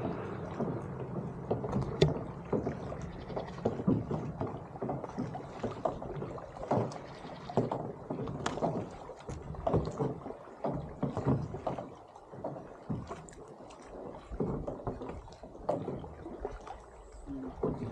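Kayak paddling: irregular splashes and drips as the paddle blades dip into and leave the lake water.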